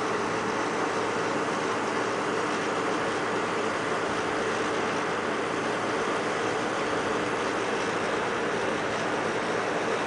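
Steady, unchanging machinery noise with a faint hum, from equipment running at a bitumen tanker-loading station.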